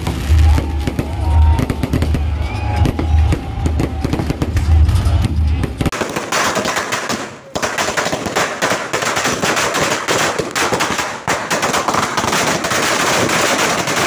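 Background music with a heavy bass beat over fireworks, cutting about six seconds in to the rapid, dense crackling of Diwali firecrackers and ground fireworks.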